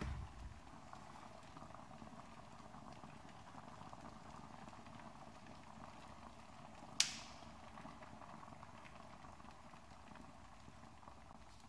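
Tepoinn mini portable handheld garment steamer running, a faint steady boiling hiss of steam. A single sharp click about seven seconds in.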